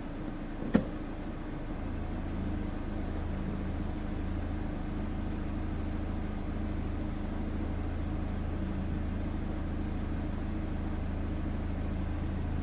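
Car engine idling at about 800 rpm on LPG, heard from inside the cabin. There is one sharp click of the AL4 automatic's gear selector about a second in, and the idle hum grows slightly deeper and louder a second later as the gearbox takes up a gear.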